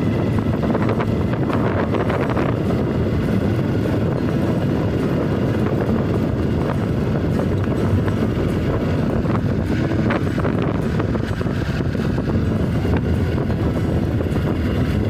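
Steady rush of wind buffeting the microphone on a moving motorbike, with the motorbike's engine running underneath.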